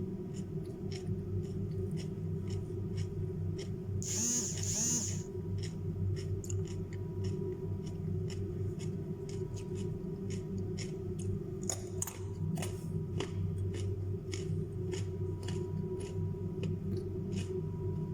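Crunching while chewing raw carrots and cucumber close to the microphone, many short crisp crunches at an irregular pace over a steady low hum. A brief, loud, hissy noise sounds about four seconds in.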